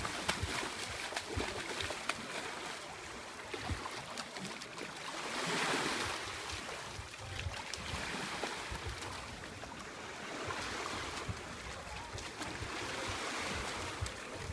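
Sea waves washing at the shore, one louder wash about five seconds in, with wind buffeting the microphone.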